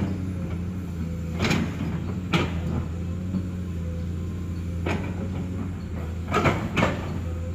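Komatsu PC210 hydraulic excavator's diesel engine running steadily, with five sharp knocks standing out over it: two about one and a half and two and a half seconds in, one near five seconds, and two close together between six and seven seconds.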